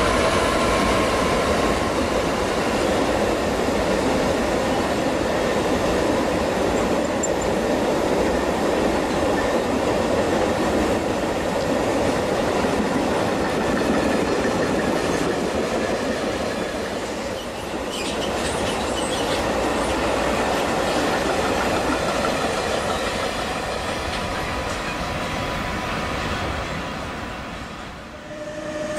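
Long freight train of double-deck car-carrier wagons rolling past: a steady rumble and clatter of wheels on rail, with a few brief high wheel squeals about two-thirds of the way through. The noise drops away near the end as the last wagon passes.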